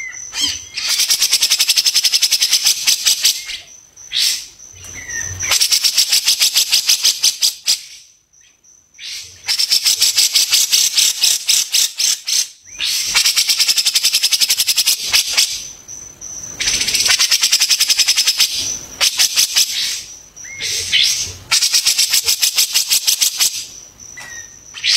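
Songbird singing fast rattling trills of rapid repeated high notes, in bouts of two to four seconds with short pauses between.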